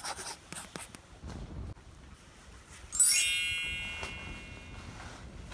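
A bright, high chime sound effect rings out about three seconds in and fades away over roughly two seconds. Before it, faint rustling and light knocks come from parcels in plastic mailers being stacked on the counter.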